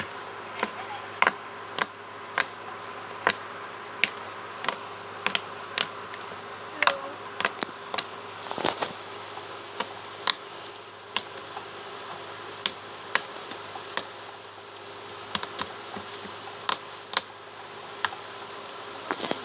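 Fluffy slime being squeezed and poked, giving sharp irregular clicks and pops, roughly one or two a second.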